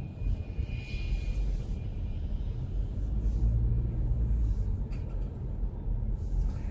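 A car driving, heard from inside the cabin: a steady low rumble of engine and tyres on the road.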